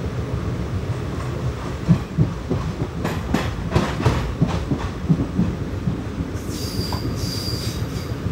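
Passenger train coaches rolling slowly into a station. The wheels clatter over rail joints and points for a few seconds from about two seconds in, then give a high squeal near the end as the train slows for its halt.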